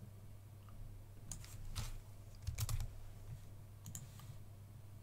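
Computer keyboard keys being typed in a few short, quiet clusters of clicks over a low steady hum.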